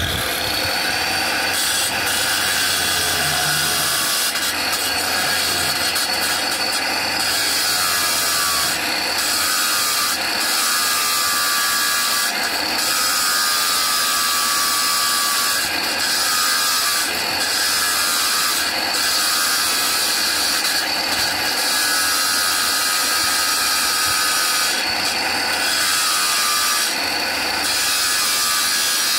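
Handheld electric marble cutter with its blade cutting wet through a marble slab: a continuous high motor whine over steady stone-grinding noise.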